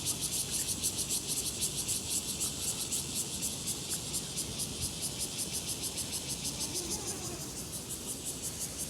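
Steady chorus of insects, a dense high-pitched buzz pulsing about five or six times a second, easing slightly near the end.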